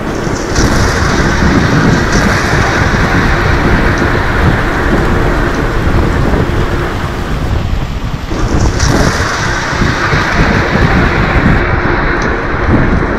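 Loud thunderstorm sound effect, a continuous rolling rumble with a rain-like hiss, that swells about half a second in and dips briefly around eight seconds in. It is the storm effect marking the moment of Christ's death on the cross in a passion play.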